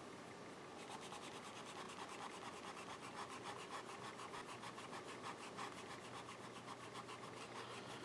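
Faint rubbing of a mechanical pencil's white eraser scrubbed back and forth over pencil writing on lined notebook paper, in quick even strokes starting about a second in. It erases the pencil marks cleanly.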